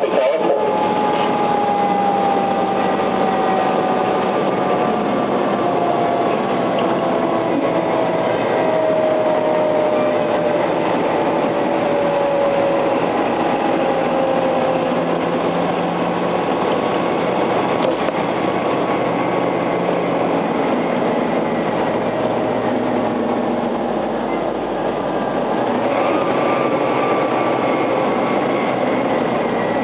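Fire engine on the move, its engine and road noise running steadily and loudly throughout. A single tone slides slowly down in pitch over about the first fifteen seconds.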